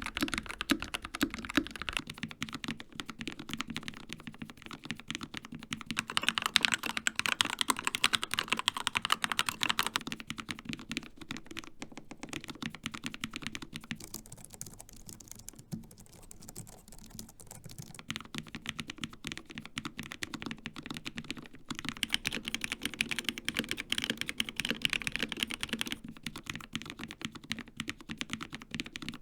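Fast typing on a series of mechanical and low-profile keyboards, one after another. It starts on a Dark Project KD083A with G3ms Sapphire switches, moves to a Keychron K2 with Gateron Red switches, then a Logitech MX Keys with scissor switches, and ends on a Melgeek Modern97 with Kailh Sonic53 switches. The keystrokes change in character roughly every eight seconds, and the scissor-switch stretch near the middle is quieter and duller.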